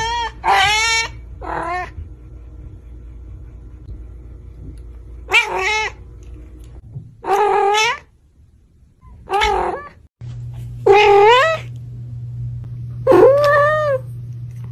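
A domestic cat meowing again and again: about seven separate meows spread out with pauses between them, each rising and then falling in pitch.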